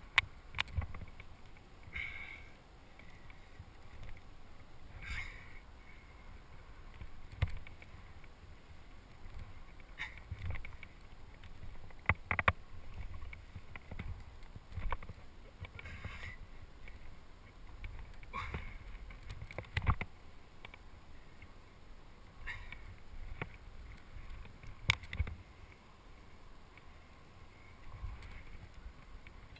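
A rock climber's hands, shoes and gear scraping and knocking against granite during a lead climb. Sharp clicks and knocks come every few seconds, with short scuffs between them, over a low rumble of handling noise picked up close by a head-mounted camera.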